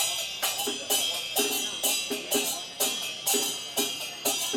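Traditional temple percussion music: cymbals and gongs struck in a brisk, steady rhythm of about two to three strokes a second, each stroke ringing briefly.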